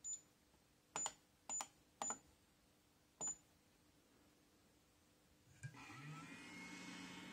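BEST BST-863 hot air rework station beeping at touch-button presses: five short, high beeps over about three seconds. About two and a half seconds later the hot air gun's blower fan starts with a short rising whine, then runs steadily with a hum and a hiss of air as the station heats up.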